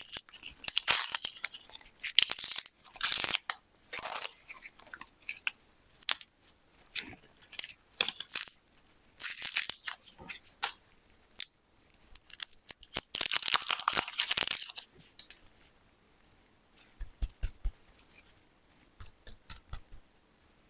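Plastic candy wrappers crinkling and tearing in repeated bursts of a second or so, with a few short soft knocks near the end.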